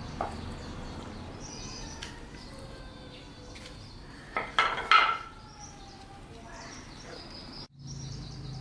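A few sharp metallic clinks, like tools or small metal parts being handled, about four and a half to five seconds in, with birds chirping in the background throughout.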